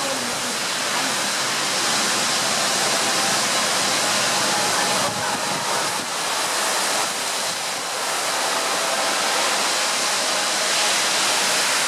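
Storm wind rushing through leafy trees, a steady loud noise that eases briefly a few times around the middle.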